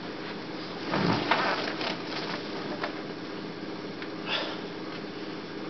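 Steady hiss and hum of a VHS tape playing through a TV speaker at the very start of the tape. A brief rustling with a few clicks comes about a second in, and a shorter rustle a little after four seconds.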